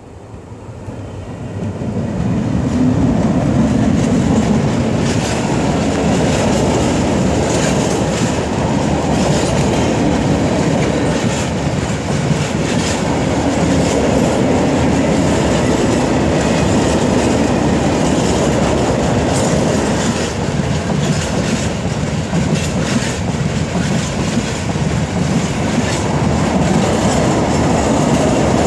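Class 60 diesel locomotive passing close by, growing louder over the first couple of seconds. It is followed by a long train of empty oil tank wagons rolling past with a steady rumble and irregular clicks of wheels over rail joints.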